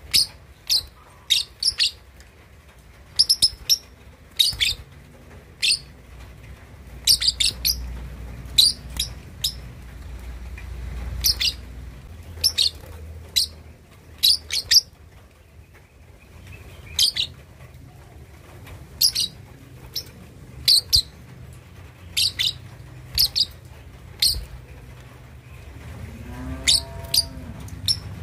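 Young lovebird, about two and a half months old, giving short sharp high chirps, singly or in quick clusters of two or three every second or two, with a brief pause about halfway. These are a juvenile's early attempts at the lovebird's chattering 'ngekek' song.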